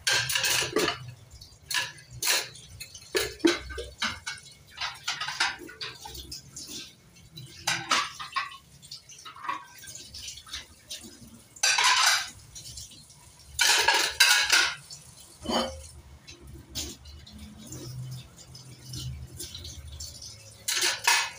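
Dishes being washed by hand at a sink: plates and plastic bowls knocking and clattering against the sink and wire dish rack at irregular moments, with several short gushes of running water as they are rinsed.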